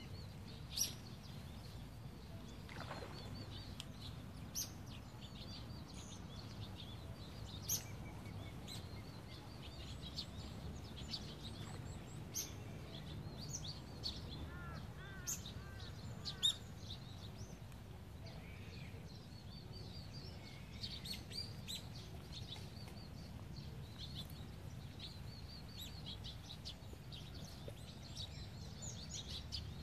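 Birds chirping on and off, short high notes with a few sharper, louder ones, over a steady low background rumble.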